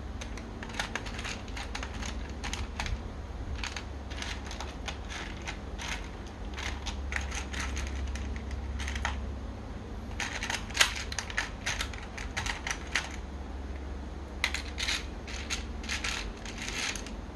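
Small plastic construction-toy parts clicking and clattering as they are handled, in quick irregular runs of clicks with one sharper click about eleven seconds in, over a steady low hum.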